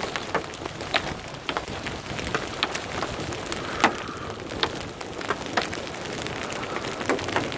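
Hail and rain coming down: a steady hiss of rain with irregular sharp knocks of hailstones striking hard surfaces, one louder strike a little under four seconds in.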